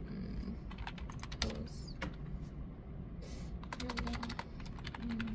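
Typing a search query on a computer keyboard: quick runs of key clicks, with a sparser pause in the middle.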